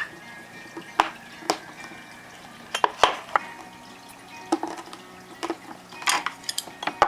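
Small porcelain plates and a silicone steamer case handled on a tray: a scattered series of about ten light knocks and clinks as the dishes are set down and shifted.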